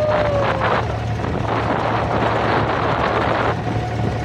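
Engine of a wooden abra water taxi droning steadily while the boat is underway, with wind buffeting the microphone over a rushing hiss of water.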